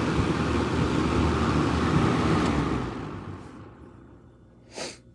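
Lakewood S122 box fan with a General Electric motor and metal blades running on high with a steady rush of air, then switched off about three seconds in and coasting down to quiet, with a low motor hum left under it. A brief noise sounds near the end.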